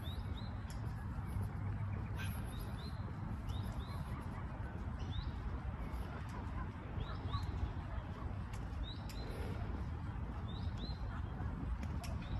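Birds calling in short, rising chirps, one every second or so, over a steady low rumble.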